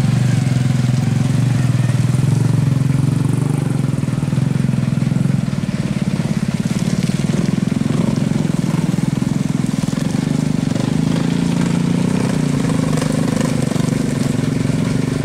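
Diesel engine of a light dump truck running steadily under load as the truck works through deep mud, a loud, low, even rumble that eases slightly about five seconds in.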